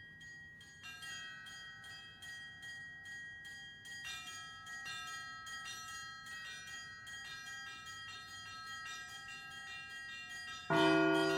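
Russian Orthodox church bell ringing (zvon): small high bells struck in a quick, even rhythm, their ringing building up gradually, then heavier, deeper bells come in suddenly and much louder near the end.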